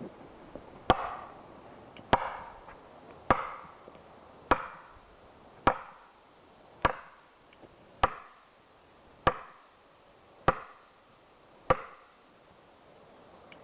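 Ten evenly spaced heavy blows into wood, a little over a second apart, each with a short ringing tail.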